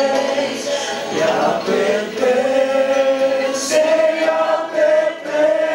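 A small mixed group of men's and women's voices singing together, slow, with long held notes that change pitch about once a second.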